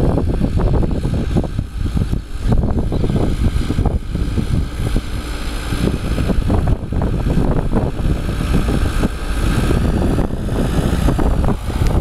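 Ford 7610 tractor's four-cylinder diesel engine running steadily under load, pulling a three-furrow plough through the soil.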